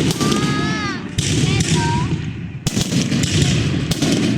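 Fireworks going off in rapid succession: dense crackling and bangs, with a fresh salvo bursting about a second in, another near the middle and another near the end.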